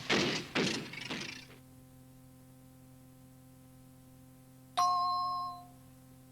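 A noisy sound effect fades out in the first second and a half, leaving a faint steady hum. About five seconds in, a single bright electronic chime rings and dies away over about a second: the cueing chime that marks the start of the next recorded track.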